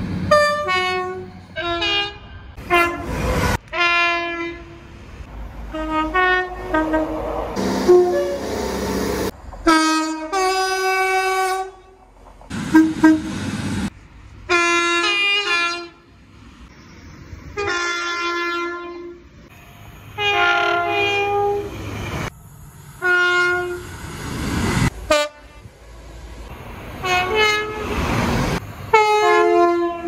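British passenger trains' two-tone horns sounding more than a dozen short blasts in quick succession, each a single note or a high-low pair. Between some blasts comes the rush of a train passing at speed.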